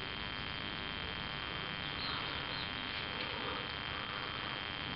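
Steady background hiss with a thin, high-pitched whine running through it: room tone of the recording.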